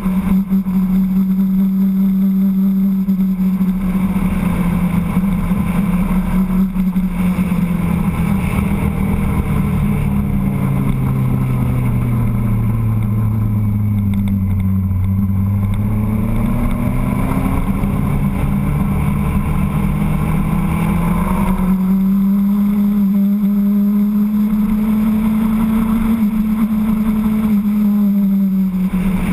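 Motorcycle engine running at steady cruising speed. About a third of the way in, its note falls smoothly to about half its pitch as the bike slows for a bend, then climbs back up as it speeds out of it.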